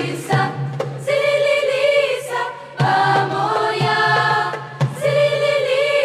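Mixed youth choir singing in harmony, several voice parts held together over a steady low note, with a few sharp percussive hits.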